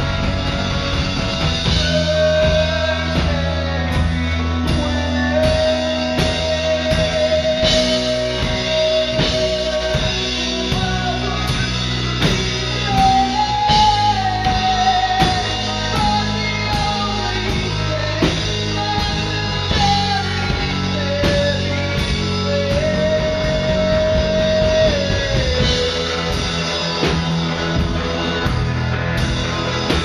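Rock band playing: electric guitar, bass and drum kit with a singer, the melody moving in long held notes over a steady beat.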